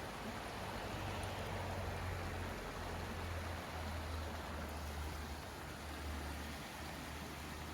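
Steady rain falling, an even hiss, with a steady low hum underneath.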